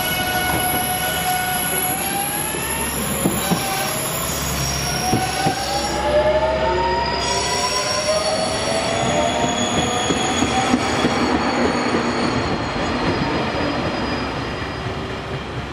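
Trains running close by: an Amagi Railway AR400 diesel railcar and a JR Kyushu 813 series electric train. Whining tones climb in pitch through the middle of the clip, and wheels click over rail joints.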